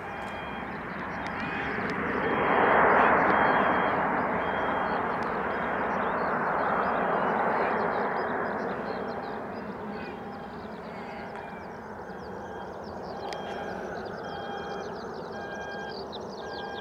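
Turbofan engines of an Embraer E-Jet airliner at climb power just after takeoff. The jet roar swells to its loudest about three seconds in, then slowly fades as the aircraft climbs away.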